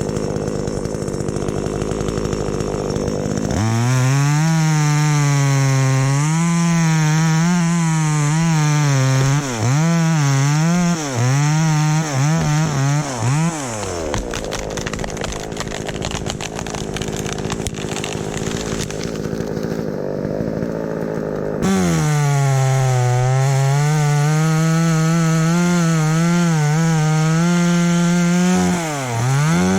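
Two-stroke chainsaw running: it idles, then is revved up to cut through wood, its pitch wavering under load. It drops back to idle for several seconds midway, then revs up and cuts again to the end.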